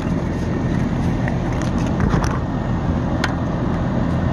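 Outdoor air-conditioning condensing unit running: a steady hum and fan whoosh, with a few faint clicks.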